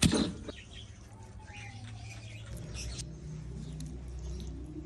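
A wooden pestle strikes once into a clay mortar of green chillies and garlic, then small birds chirp faintly over a low steady hum.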